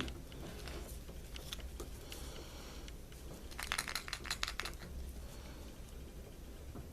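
Light clicks and taps from a Kinder Surprise chocolate egg being handled, with a quick cluster of clicks a little past halfway.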